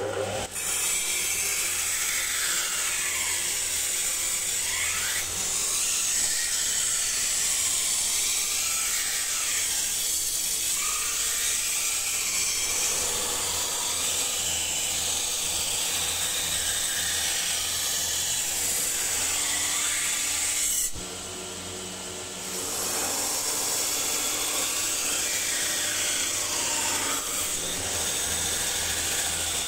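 Homemade 2x48 belt grinder, driven by a bench-grinder motor, grinding the bevel of a high-speed-steel knife blade held in a jig: a steady hiss of steel on the running belt over the motor hum. Its pitch rises and falls as the pressure changes, and it is briefly quieter about two-thirds of the way through.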